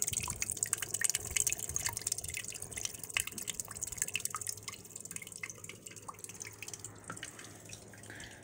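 A small homemade popsicle-stick water wheel spinning, its paddles slapping the water in a plastic tub in quick, irregular splashes and drips, over the hiss of falling water. The water sound grows fainter in the second half.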